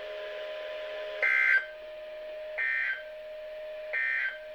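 NOAA Weather Radio EAS/SAME end-of-message signal: three short, harsh digital data bursts about a second apart, the end-of-message code that closes a warning broadcast. A faint steady tone hums underneath between the bursts.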